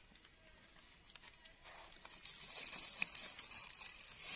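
Faint rustling and crackling of dry leaf litter, with a few light clicks, as a knife and hands dig around a bolete mushroom on the forest floor. A faint steady high hiss runs underneath.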